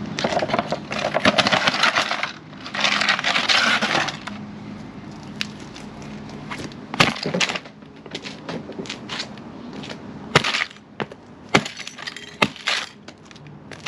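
A 1/24-scale die-cast 1967 Ford Mustang model being crushed: two long crunching stretches in the first four seconds, then a run of sharp separate cracks and snaps as its windows and parts break.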